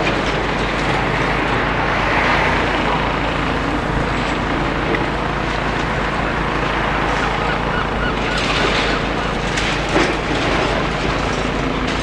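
Demolition excavator with a bucket working through rubble: steady engine noise under scraping and clattering of broken masonry and metal. There are a few louder knocks and scrapes about nine to ten seconds in.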